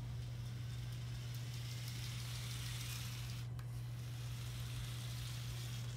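Small electric motors and gearing of a Lego Power Functions truck whirring as it drives past across a hard tile floor, over a steady low hum.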